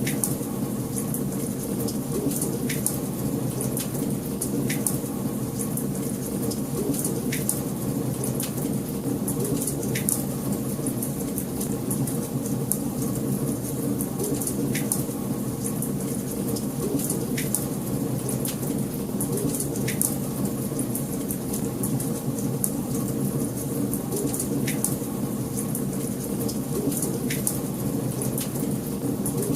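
Wood fire burning in a fireplace: a steady low rumble of flames with constant fine crackling and a sharper pop every two or three seconds.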